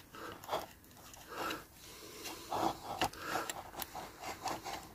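Plastic body and chassis of a Hornby OO gauge model locomotive being handled and pushed together: faint scraping and rubbing with a few light clicks, the sharpest about three seconds in.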